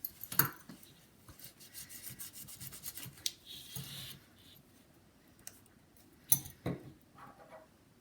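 Rubbing and scrubbing strokes of old thermal paste being wiped off a laptop heatsink, in quick short passes over the first half, with a few sharp clicks and taps, the loudest about six seconds in.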